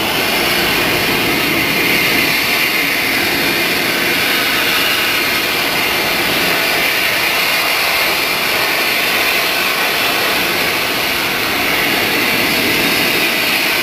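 Outboard motor of a small fishing boat running steadily under way, a loud, even rushing drone.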